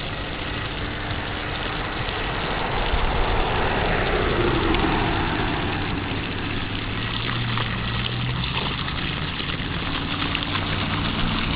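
A stream of urine splashing into a muddy puddle, over the steady hum of an engine idling.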